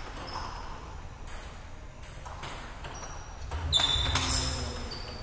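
Table tennis rally: the plastic ball clicks off the paddles and bounces on the table, a string of short sharp ticks every half second to a second. About four seconds in there is a louder sudden sound with a brief high ringing tone.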